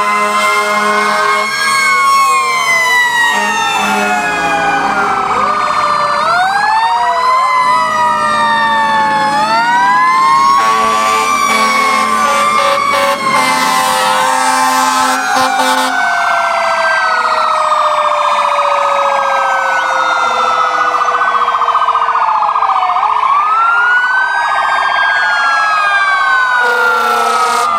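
Several fire truck sirens sounding at once as the trucks drive past: electronic sirens wailing and yelping in overlapping rising and falling tones, with steady horn blasts near the start, in the middle and near the end. Under them a mechanical siren winds down slowly over about ten seconds.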